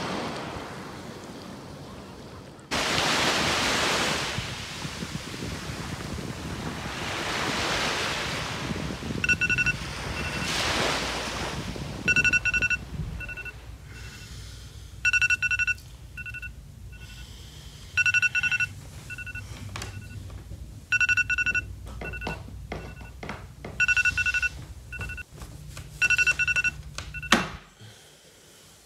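Sea waves washing in slow swells. Then an electronic wake-up alarm beeps in a repeating pattern, a longer beep followed by a few short ones about every three seconds, and stops abruptly near the end.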